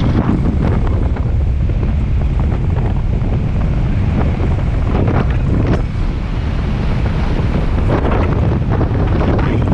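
Steady wind rushing over a head-mounted camera microphone under an open parachute, a heavy low rumble with a few brief louder flutters about halfway through and near the end.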